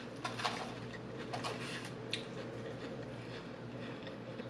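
Close-miked chewing of a mouthful of salad, with a few soft, short clicks and crunches.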